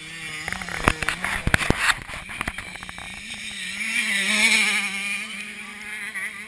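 Motocross dirt bike engines racing around the track, the pitch wavering as riders work the throttle, with one bike passing close and loudest about four to five seconds in. A cluster of sharp knocks and clicks comes in the first two seconds.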